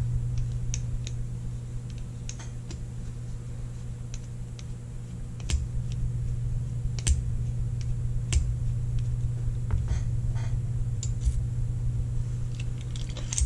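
Scattered small metallic clicks and taps as a screwdriver backs the hammer screw out of an antique revolver's frame and the parts are handled, a few sharper ones in the middle, over a steady low hum.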